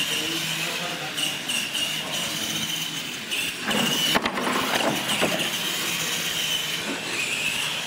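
Radio-controlled electric monster trucks racing on a concrete floor, their motors and gearing giving a high whine that wavers in pitch with throttle. There is a sharp knock about four seconds in.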